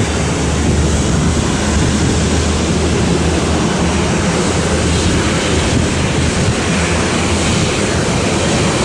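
Steady, distant engine noise of a jet airliner moving along the runway, mixed with wind on the microphone.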